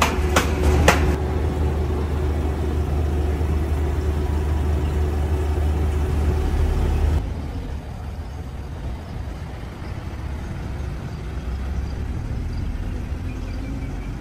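A vehicle engine idling with a steady low hum, with a few sharp knocks in the first second from wheeled school bags bumping over the doorstep. About seven seconds in the hum drops away abruptly to quieter street noise as a school bus drives past.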